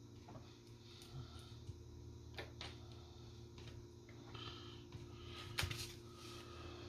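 Faint, sparse clicks and taps of small smartphone parts and ribbon-cable connectors being handled and fitted, over a steady low hum.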